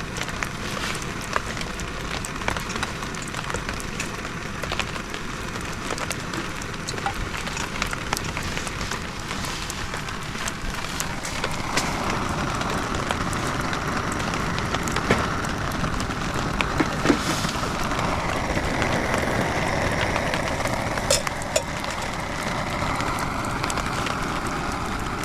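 Steady rain noise thick with small crackles and ticks. About halfway through, a higher hiss comes in and holds.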